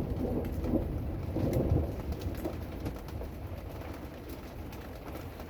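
Steady rain falling after a hailstorm, with a low rumble of thunder dying away over the first two seconds. A bird coos softly a few times early on.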